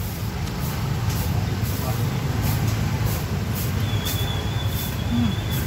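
Steady low rumble of road traffic, with a thin high squeal in the last couple of seconds.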